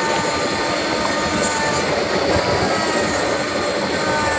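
Handheld electric wood router running steadily at high speed with a high motor whine, its bit cutting a carved design into a wooden board.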